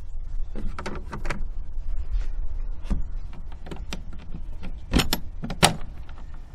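Metal hasp latch on a wooden chicken-coop nest box being flipped shut and fastened by hand: a run of light clicks and knocks, with the sharpest metallic clacks about five seconds in.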